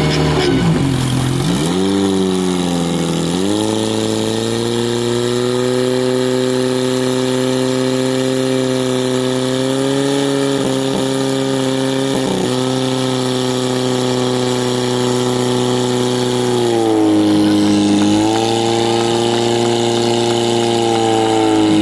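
Portable fire-pump engine running hard while it pumps water out to the hose jets. Its pitch sags and then climbs back up about two to three seconds in, holds steady at high revs, then dips again about seventeen seconds in and runs on slightly lower.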